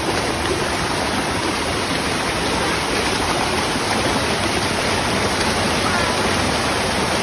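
Steady rushing of a waterfall and the river below it, an even wash of water noise.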